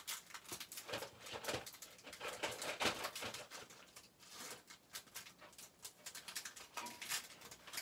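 Foil wrapper of a Topps Opening Day baseball card pack crinkling and tearing as it is pulled open by hand: a run of irregular crackles.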